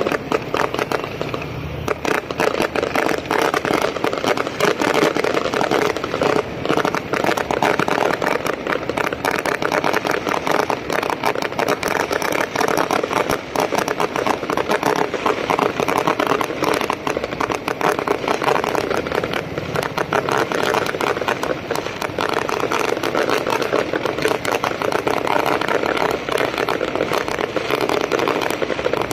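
Strings of firecrackers going off in a rapid, continuous crackle of sharp bangs, without a break.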